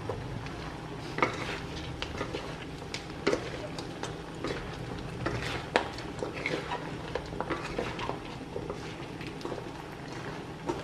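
Wooden spatula stirring and tossing chunks of chicken, shallots and lemongrass in a large metal wok, with irregular scrapes and knocks against the pan.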